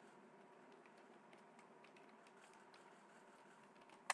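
Faint computer keyboard typing: a run of light keystroke clicks, with one sharper click near the end, over a low room hiss.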